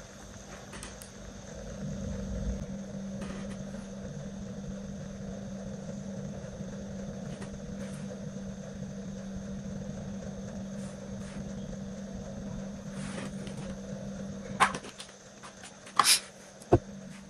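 Steady low hum of room noise, broken near the end by three sharp clicks or taps.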